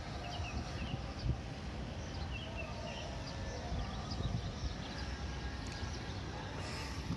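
Outdoor ambience: a small bird chirping in short bursts, a few times near the start and again two to three seconds in, over a steady low rumble.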